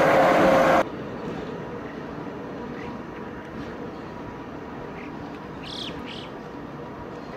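Cog railcar's running gear passing at close range, a loud rumble with a steady tone on top, cut off suddenly under a second in. Then a quieter steady outdoor background with a few short bird chirps, two clearer ones near the end.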